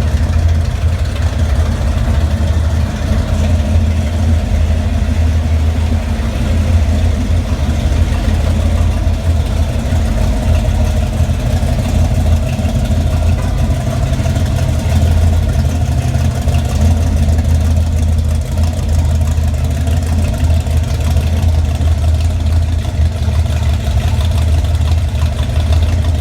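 1971 Chevy C10's 454 big-block V8, fitted with a Lunati Voodoo camshaft, idling roughly through a Black Widow exhaust, very loud and without revving.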